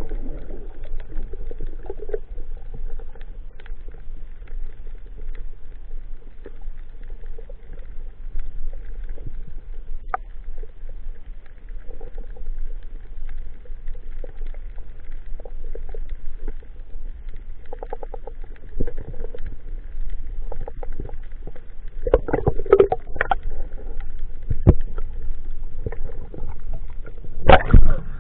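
Underwater sound heard through a camera's waterproof housing on a reef dive: a muffled low rumble with scattered faint clicks and crackles. Louder splashy bursts come near the end as the diver comes up to the surface.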